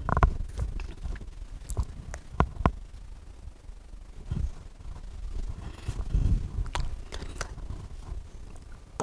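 Faint handling noise on a worn headset microphone as the wearer moves about: scattered light clicks, rustling and scraping, with a couple of soft low thuds.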